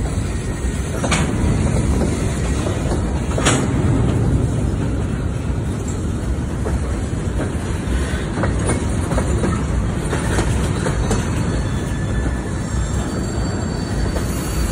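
A freight train of covered hopper cars rolling past: a steady, loud rumble of steel wheels on rail, with a couple of sharp clanks about one and three and a half seconds in.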